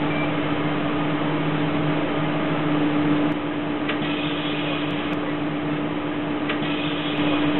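Steady interior hum of a city bus picked up by its onboard camera microphone: engine and ventilation noise with a constant low droning tone. Two brief clicks come about four and six and a half seconds in.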